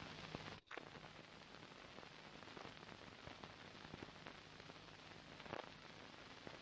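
Near silence: the faint steady hiss and light crackle of an old film soundtrack, cutting out completely for an instant about half a second in.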